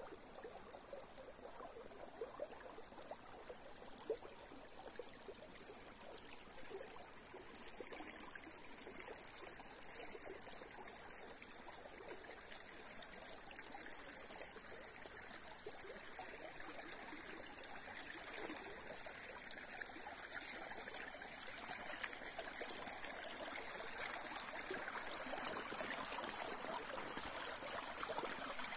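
Small forest river flowing and trickling, a steady rush of water that grows gradually louder toward the end.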